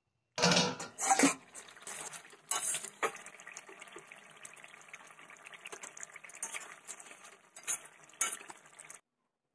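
A metal pot lid clanks against the pot a couple of times in the first second. Then fish and turnip curry simmers in the covered pot, bubbling steadily with a few light clinks, until the sound cuts off near the end.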